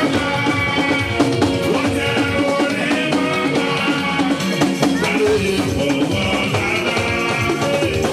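Praise music with drums keeping a steady beat under pitched instruments.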